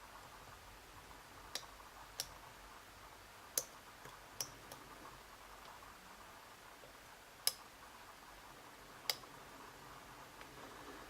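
Abus E60 padlock being picked: about six sharp, light clicks come at irregular intervals from the pick and pin stacks inside the cylinder, with a few fainter ticks between them. Under such light tension the clicks may be pins setting or pins being let out.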